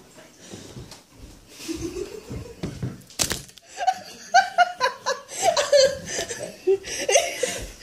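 Hearty laughter, rising into loud, rapid bursts from about three and a half seconds in, just after a single sharp knock.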